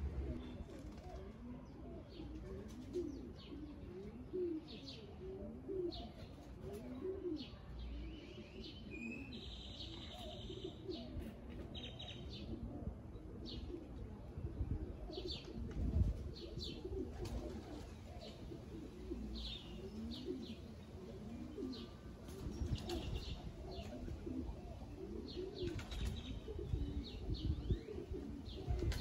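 Pigeons in a loft cooing continuously, with many short, high chirps scattered among the coos.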